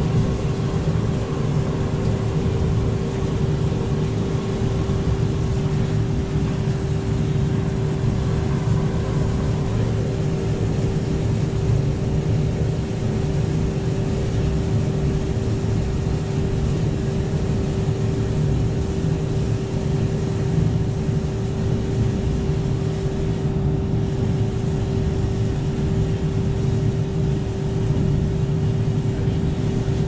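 Portable electric cement mixer running steadily, a constant motor hum over the low rumble of the turning drum while a batch of concrete is mixed.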